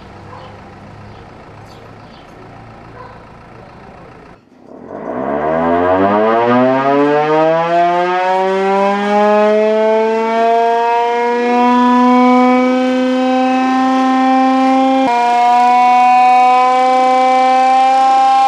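About four seconds in, a siren starts up, its pitch rising slowly as it winds up and then holding as one long, loud, steady wail. It is the iftar siren, the signal that the time to break the Ramadan fast has come.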